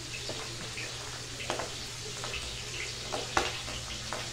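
Milkfish (bangus) frying in hot oil in a pan: a steady sizzle broken by a few sharp clicks, the loudest about three and a half seconds in.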